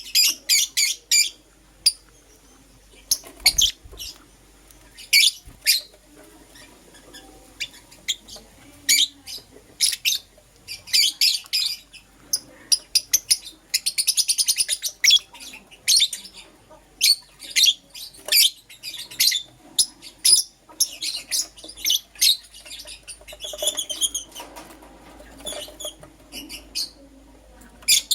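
Lovebirds chirping: rapid runs of short, sharp, high-pitched chirps in clusters, broken by brief pauses.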